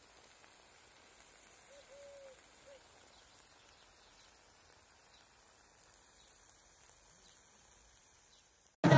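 Faint outdoor ambience with a short, low bird call of three soft notes about two seconds in. Near the very end, loud music with drums cuts in abruptly.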